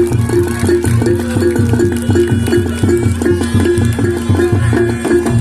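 Reog Ponorogo gamelan music: drums and gong-chimes playing a steady, fast beat, with one pitched metallic note repeating two or three times a second.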